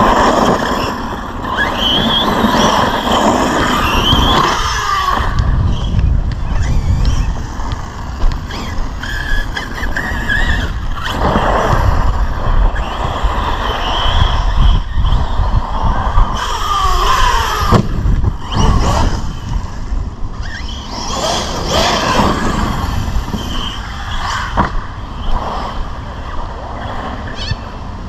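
Arrma Big Rock 6S brushless RC monster truck being driven hard, its electric motor whining up and down in pitch again and again as the throttle is worked, over a heavy low rumble.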